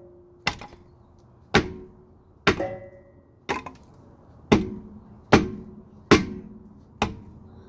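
Hammer striking the Dana 35 rear differential's cover and housing, eight blows about a second apart, each with a short metallic ring. The blows are meant to break loose a cover stuck on with sealant.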